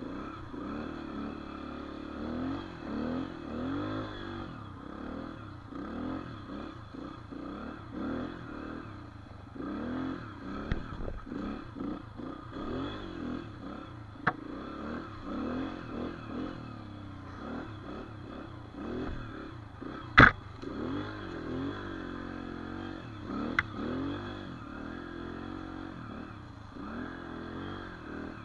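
Dirt bike engine revving up and down over and over as the throttle is worked. A few sharp knocks cut through, the loudest about twenty seconds in.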